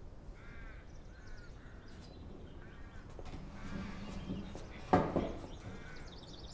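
Crows cawing repeatedly, a short arched call about every second. About five seconds in there is a single louder thump.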